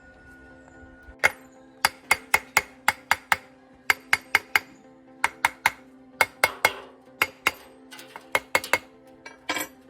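A series of sharp clinks and knocks, hard objects striking, coming in quick irregular groups of two to four, ending in a short rattle, over steady background music.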